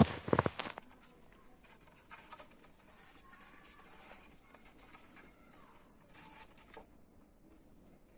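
A cluster of sharp knocks in the first second, then faint rustling and scratching with a few faint chirps, which fade out about a second before the end.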